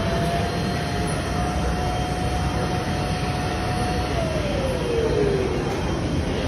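Automatic cotton candy vending machine running as it spins sugar floss onto a stick: a steady whir with a motor tone that holds level, then winds down in pitch about four seconds in.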